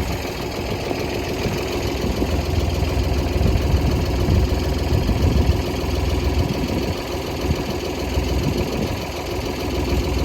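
A Ford tractor's engine idling steadily with a fast, even low chug, growing slightly louder for a few seconds mid-way.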